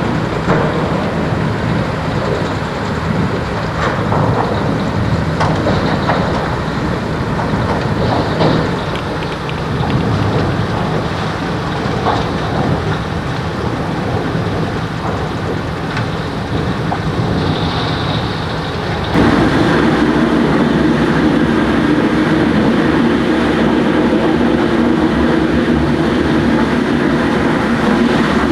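Wood chipper running and chipping wood: a continuous mechanical roar with scattered sharp cracks and knocks. About two-thirds of the way in, a stronger, louder engine note sets in and holds steady.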